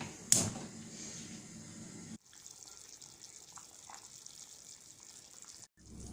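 A metal clank just after the start, then a steady hiss of meatballs stewing in water and oil in a covered pan. The hiss cuts out abruptly twice.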